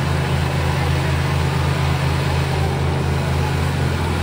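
Tractor diesel engines running hard under full load in a tug-of-war pull, a steady low drone that does not let up.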